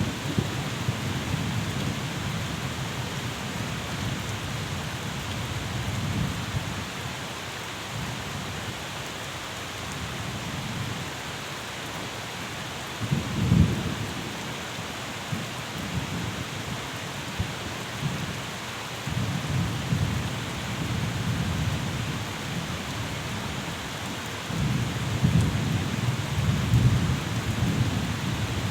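Steady rain hiss with a low rumble beneath it that rises and falls, swelling about halfway through and again near the end.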